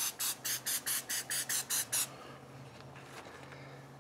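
Cooking oil sprayer spritzing in rapid short puffs, about six a second, stopping about two seconds in. A faint steady low hum runs underneath.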